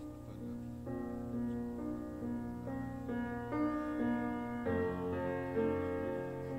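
Background piano music, held notes and chords changing about every half second to a second.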